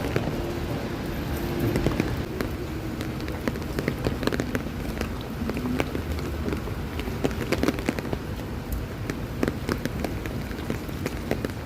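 Light rain falling on a wet city street, a steady hiss with many scattered small sharp taps of drops, over faint low traffic hum.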